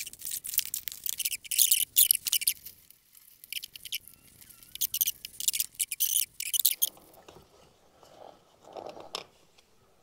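Close handling noise from working with plastic shower fittings: rapid scratchy rustling and scraping in two runs of about three seconds each, then softer fumbling and a sharp click near the end.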